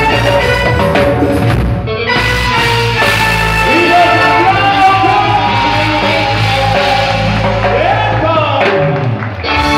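Loud amplified live band music with keyboards, electric guitar and a steady bass line, and a voice singing over it.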